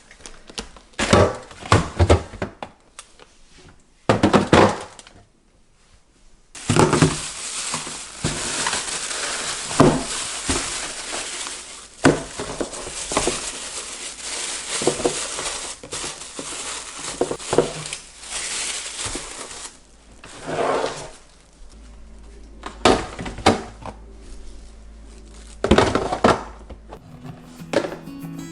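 Kitchen containers and packages being handled: repeated knocks and clatters as things are picked up and set down, with crinkling, and a steady hiss through the middle stretch.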